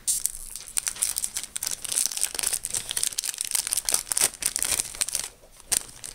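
Foil wrapper of a Yu-Gi-Oh booster pack being torn open and crinkled by hand, a dense crackling that goes on for about five seconds and dies down near the end.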